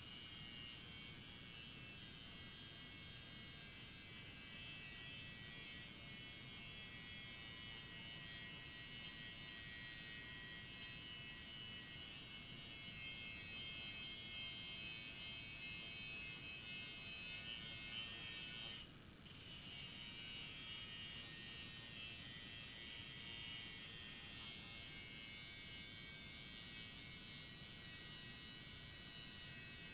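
Electric grinder running steadily as a riding-mower blade is sharpened on it, heard faint because the audio has been turned down. It stops briefly about 19 seconds in, then runs on.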